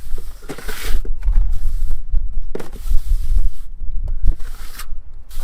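Plastering trowel scraping and spreading wet cement render on a wall in short strokes, with a few light knocks, over a steady low rumble.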